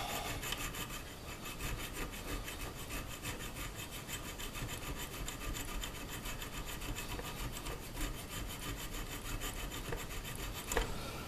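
Hand file rasping back and forth in quick, even strokes on a 1911 pistol sight, relieving it so it fits snugly in the slide's dovetail.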